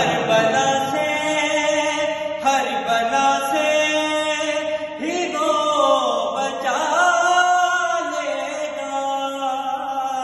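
A man's voice chanting a manqabat, a devotional Urdu poem, in long held notes that slide in pitch, with a new phrase starting every two to three seconds.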